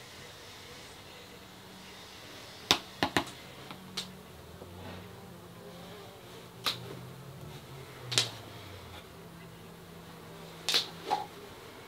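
Scattered sharp clicks and light taps, about eight at uneven intervals, from a metal palette knife working wet white paint over a stretched canvas. A faint low hum lies under them.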